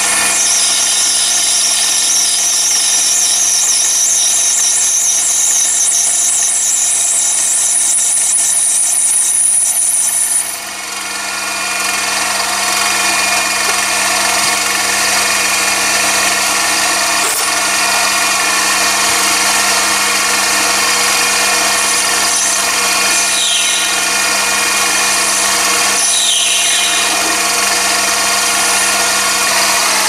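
Chinese mini lathe running while its tool turns a brass bar to a cone. A high, wavering cutting whine stops about ten seconds in, and the machine's steady hum carries on, with a couple of faint falling squeals later.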